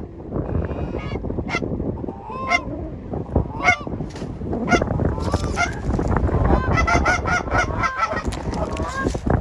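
Canada geese honking: scattered single honks that build to a rapid, overlapping chorus of honks and clucks about two-thirds of the way in, over a low rumble of wind on the microphone.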